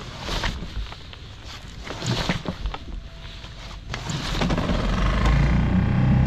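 Mercury 6 hp four-stroke outboard being pull-started cold on choke: two quick rips of the recoil starter cord, then the engine catches about four seconds in and settles into a steady, louder run.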